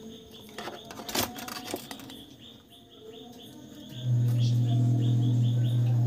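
A few light clicks and taps come about a second in, then a loud steady low hum starts about four seconds in. Faint bird chirps repeat in the background throughout.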